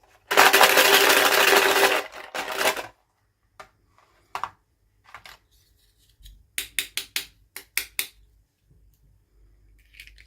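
Toy packaging being handled: a long tearing, crinkling rustle of plastic wrapping, then scattered clicks and a quick run of about seven sharp clicks from small plastic parts.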